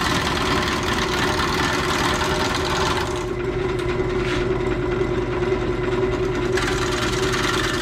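Jet 1236 wood lathe running at low speed with a steady hum while a bowl gouge cuts an out-of-round Leyland cypress blank, the tool hitting the flat spots in a fast, even chatter. The cutting noise eases off about three seconds in and picks up again near the end.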